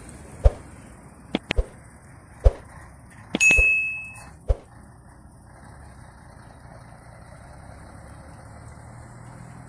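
Subscribe-button overlay sound effects: several sharp mouse clicks, and a short steady chime with a whoosh about three and a half seconds in. Underneath, a Scania 113H truck's diesel engine runs low and steady, filling out about halfway through as the truck manoeuvres.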